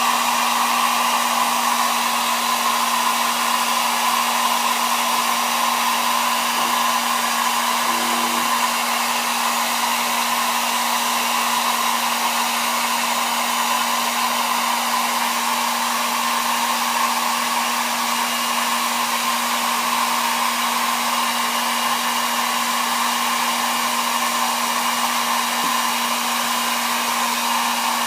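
Hot-air blower running steadily with a constant hum, heating the phone's screen glass so it separates from the digitizer.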